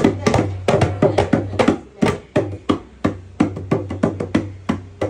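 A drum being struck repeatedly in a quick, uneven rhythm, about four strikes a second.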